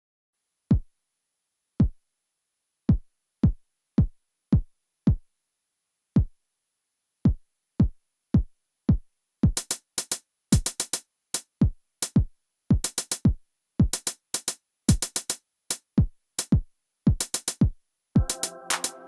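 Behringer RD-9 analog drum machine, a clone of the TR-909, playing a programmed pattern. Bass-drum kicks with a falling pitch come in an uneven rhythm, and hi-hats join about halfway. A held pitched tone comes in near the end.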